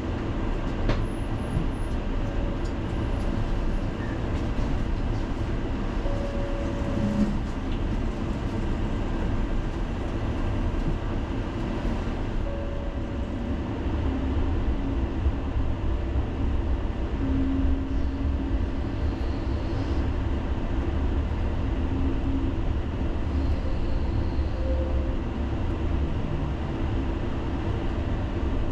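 Tram running along its rails, heard from inside the car: a steady low rumble with a few brief, short tones laid over it.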